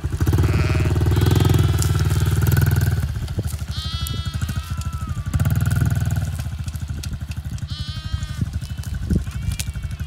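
Engine of a child's small red dirt bike running, louder for the first three seconds and again briefly about five seconds in. Sheep bleat twice over it.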